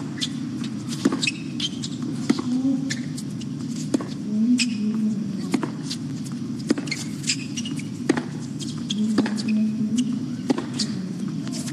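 Tennis rally on a hard court: a serve, then racquets striking the ball and the ball bouncing, a string of sharp pops one or two a second, over a low steady crowd murmur.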